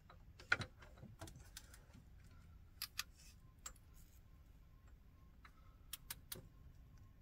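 Scattered sharp metallic clicks of a long ratchet wrench on the cylinder head bolts of a Ford 5.4 L V8 as they are tightened down, about a dozen separate clicks with the loudest about half a second in.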